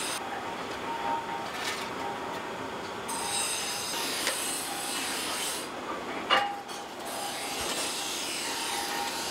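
Steady mechanical noise of a blacksmith's workshop, with light scraping and one sharp knock about six seconds in.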